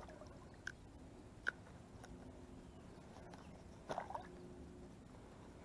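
Quiet lakeside ambience: a steady faint hiss of wind and rippling water, with a couple of small clicks and a short pitched sound about four seconds in.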